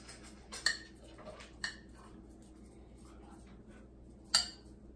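Knife clinking against a plate while cutting a chocolate bar into pieces: three sharp clinks, about half a second in, at about a second and a half, and the loudest near the end.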